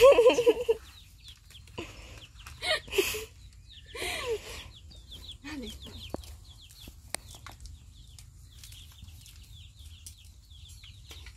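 Chickens clucking and calling at intervals, loudest right at the start, with many short high falling chirps in between.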